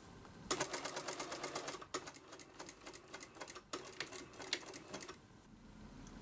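Industrial lockstitch sewing machine stitching fabric: a fast, even clatter of needle strokes that starts about half a second in, falters briefly twice, and stops about a second before the end.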